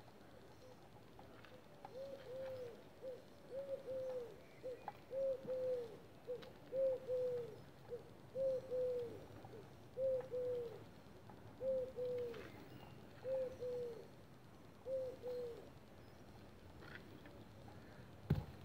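A dove cooing the same short phrase over and over, about eight times, each phrase roughly a second and a half after the last. A single sharp thump comes near the end.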